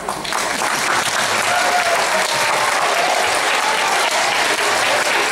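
Audience applauding: a dense clapping that starts suddenly and holds steady.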